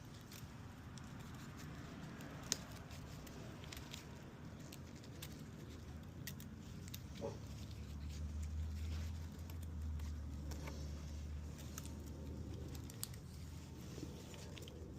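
Faint clicks, light scraping and rustling of a steel piston ring being worked by hand into its groove on a piston. A low hum comes in about eight seconds in and fades a few seconds later.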